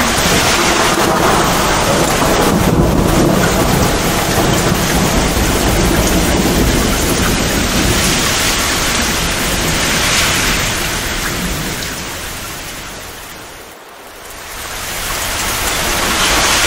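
Torrential rain pouring with low, rumbling thunder. The storm fades to a lull about three-quarters of the way through, then swells back up.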